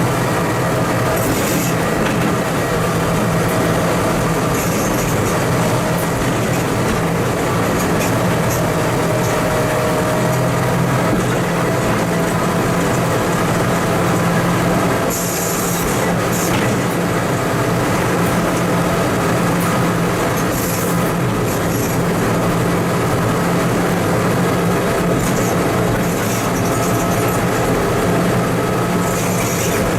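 Diesel engine of a TMC200 snow-removal motor car running steadily as the car travels along the rails, with short high hissing bursts now and then.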